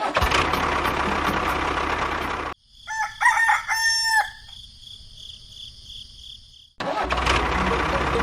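A rooster crows once, about three seconds in, between stretches of steady motor-like noise.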